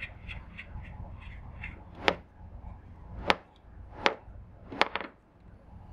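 A nut being spun by hand onto a long bolt through a desk's keyboard-tray bracket. There is light ticking, about three a second, for the first second or two, then four sharp clicks spaced about a second apart.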